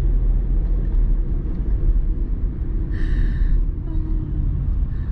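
Steady low rumble of a car driving, heard from inside the cabin: engine and tyre noise. A brief higher-pitched sound comes about three seconds in.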